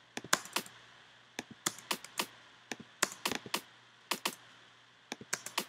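Computer mouse and keyboard clicks in quick, irregular clusters, as a pattern is entered in music software, over a faint steady hum.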